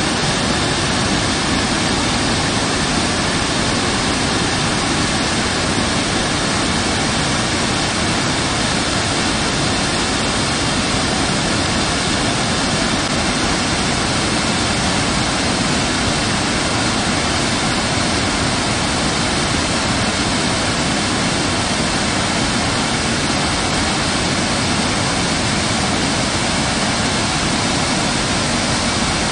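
Rain-swollen canal in flood pouring over a stone weir and churning white below it: a steady, unbroken rush of water.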